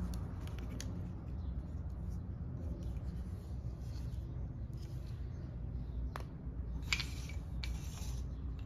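Wooden and plastic pieces of a children's toy tool set knocking and clicking as they are handled and fitted together, a few light taps with the loudest about seven seconds in, over a steady low rumble.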